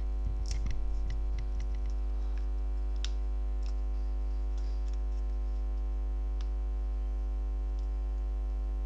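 Steady electrical mains hum with a long series of overtones, with a few faint sharp clicks over it.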